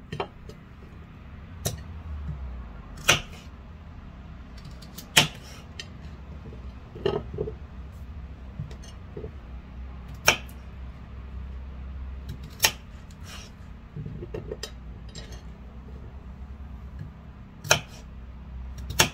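Kitchen knife cutting peeled potatoes into chunks on a wooden chopping board: sharp knocks of the blade meeting the board, a few seconds apart and irregular, over a steady low hum.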